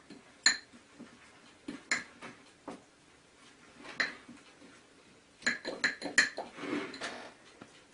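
Metal spoon clinking and scraping against a ceramic bowl while stirring baking soda and liquid soap into a paste: scattered single clinks, then a quick run of several about six seconds in.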